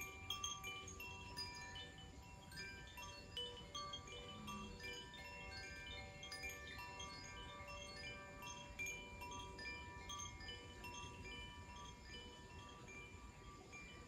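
Koshi chimes, bamboo-tube wind chimes with tuned metal rods struck by a hanging clapper, rocked by hand: a continuous stream of light, overlapping tinkling notes, some ringing on.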